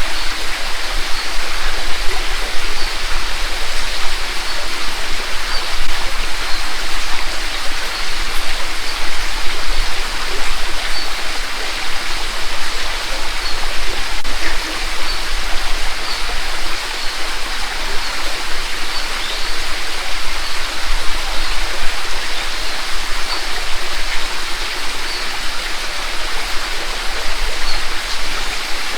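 Mountain creek water rushing and babbling steadily over a rocky streambed.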